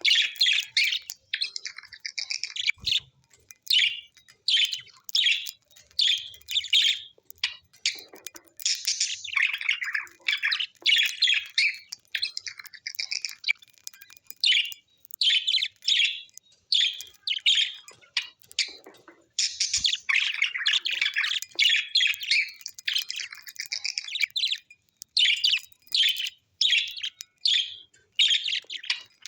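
Birds chirping and twittering in quick, dense runs of short high-pitched calls, broken by brief pauses, with the odd squawk.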